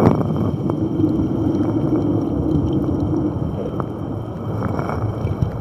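Seawater and wind rushing over a racing yacht's deck as it pounds through heavy seas, with a wave breaking over the bow at the start. A low steady hum runs under the rush from about one to three seconds in.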